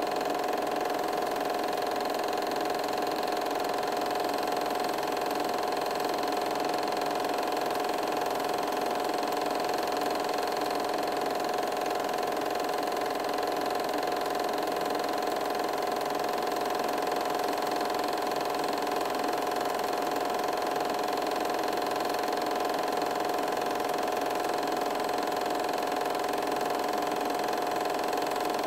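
8mm film projector running with a steady whirr and hum, unchanged throughout.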